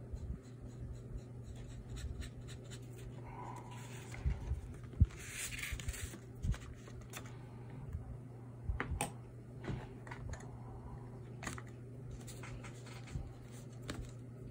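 Ink pen scratching on paper in short strokes as a drawing is inked, with a longer scratchy stroke about five seconds in and a few light knocks, the loudest just before it, over a steady low hum.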